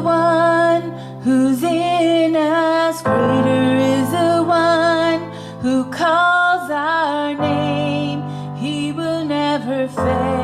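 Slow worship-song introduction: held keyboard chords that change every three to four seconds, under a wavering melody line.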